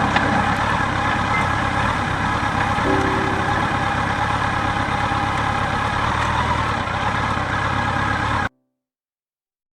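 Motorcycle engine running under a steady rush of road and wind noise, cutting off abruptly about eight and a half seconds in.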